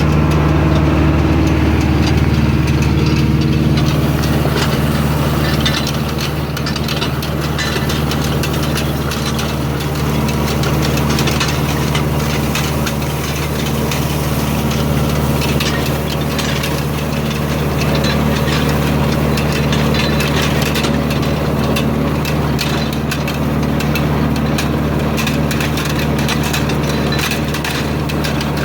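Tractor engine running steadily as it pulls a Kuhn hay tedder, over a dense, rapid rattle of clicks and knocks from the working tedder. The noise comes from slop, that is play or looseness, in the tedder.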